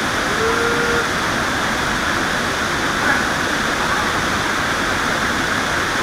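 Waterfall rushing steadily over a rock face, with a few faint voices calling now and then.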